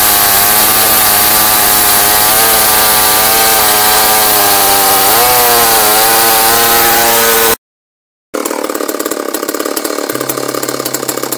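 Two-stroke chainsaw on a chainsaw mill ripping lengthwise through a log under full load, its engine pitch wavering slightly as it cuts. The sound cuts out for under a second about two-thirds of the way through and comes back quieter.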